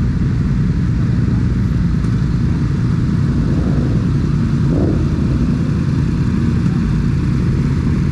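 Several motorcycle engines idling together in a steady, even drone, with a brief slight rise in pitch about four and a half seconds in.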